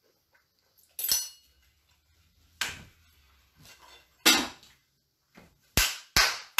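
A series of sharp knocks and clatters, five of them spread over several seconds, from kitchen items being handled.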